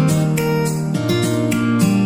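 Background music led by strummed acoustic guitar, with chords changing about twice a second.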